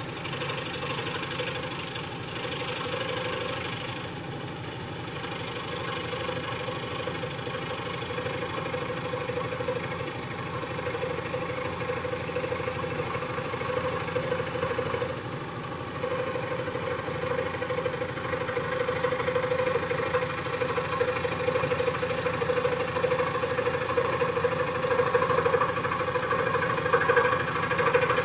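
A 16-inch bench scroll saw (jigsaw) running steadily, its blade reciprocating rapidly as it cuts balsa wood. It grows somewhat louder in the second half.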